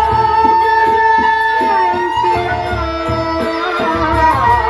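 Sasak gendang beleq ensemble playing live: big drums beating repeatedly under a long held, bending melody line, with a male vocalist singing into a microphone.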